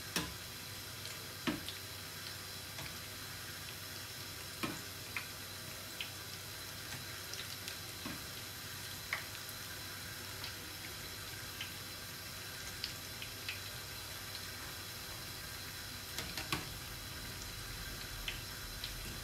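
Zucchini fritters frying in hot oil in a large metal pan: a steady sizzle, with occasional light clicks of a utensil against the pan.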